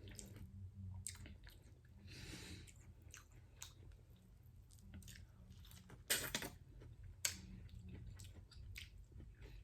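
A person chewing food close to the microphone, mukbang-style, with soft wet smacks and clicks throughout. The loudest smacks come about six and seven seconds in.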